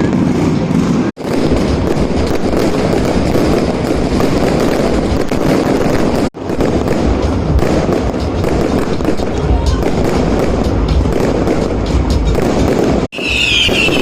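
Firecrackers and fireworks going off in rapid, overlapping cracks and pops, dense and continuous. The sound breaks off abruptly three times, about a second in, about six seconds in and near the end.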